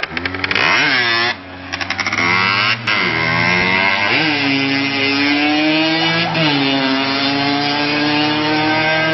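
A small motorcycle engine is revved in a few short blips and then pulled hard. Its buzzing pitch climbs and holds high, dipping and climbing again twice along the way.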